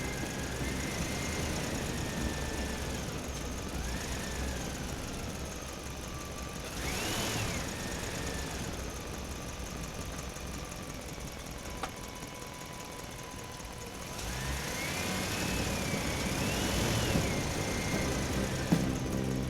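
Steady engine rumble, with slow rising and falling whistle-like tones over it at times, one swelling about seven seconds in and again from about fifteen to seventeen seconds.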